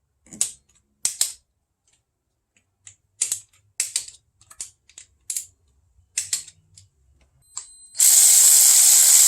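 Hand ratchet clicking in short, uneven strokes as the PCV valve's mounting bolts are run down before torquing. About eight seconds in, a loud steady power-tool whir starts.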